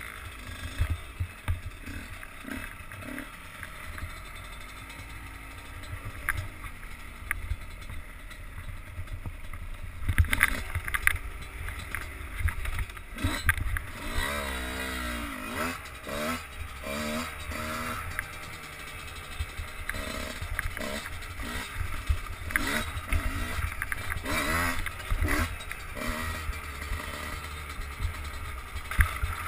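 Enduro dirt bike engine heard from the rider's helmet camera, revving up and down over and over as the throttle is worked on rough ground, with more hard revving from about ten seconds in. A heavy low rumble of wind and buffeting on the microphone runs underneath.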